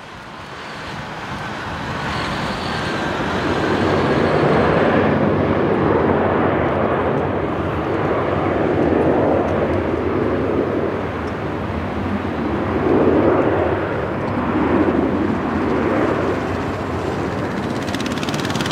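Airbus A319's twin jet engines running at taxi power as the airliner rolls along the taxiway: a steady jet rumble with a higher whine, growing louder over the first few seconds and then holding with slow swells.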